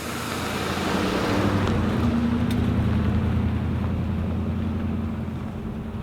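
Ford Super Duty pickup's engine running with a steady low drone, its pitch rising slightly about two seconds in.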